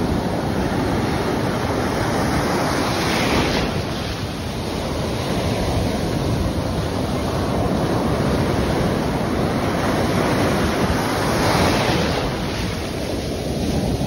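Ocean surf breaking and washing through the shallows: a continuous rushing roar of water that swells louder twice, a few seconds in and again past the middle, as waves crash.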